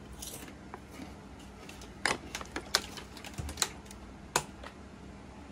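Sharp clicks and taps from things being handled on a kitchen counter, a handful of louder ones between about two and four and a half seconds in.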